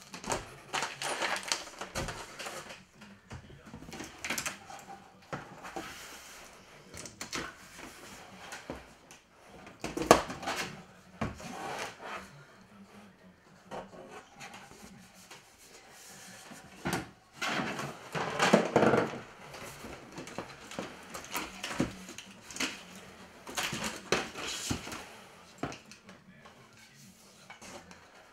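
Large paper plan sheets and the cardboard box rustling, sliding and scraping as they are handled, in irregular bursts, with a sharp knock about ten seconds in.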